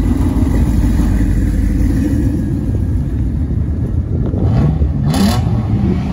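Pickup truck engine and exhaust rumbling loudly as it pulls away, with a short rev rising in pitch about four and a half seconds in.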